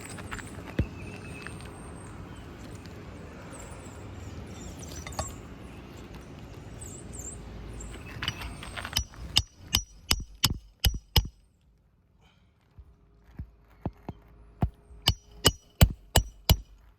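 Steady background noise, then two runs of sharp hammer blows, about three a second, from a hammer striking a roofer's snake tool to drive a roofing nail under a lifted asphalt shingle.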